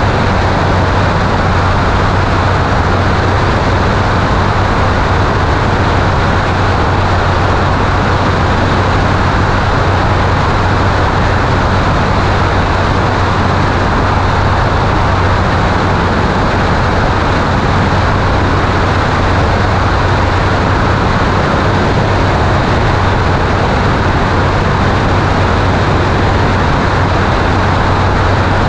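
Light aircraft in flight (Zenith STOL 750): a steady engine and propeller drone under the loud, even rush of airflow over a camera mounted outside on the wing.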